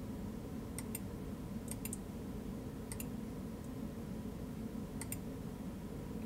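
Computer mouse button clicking: about four quick press-and-release double clicks spread across the stretch, over a low steady hum.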